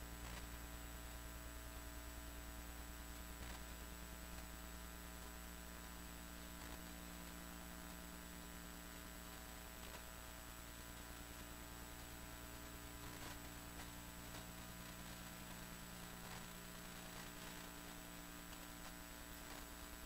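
Faint steady electrical mains hum with a thin high whine, and a few faint light clicks scattered through it.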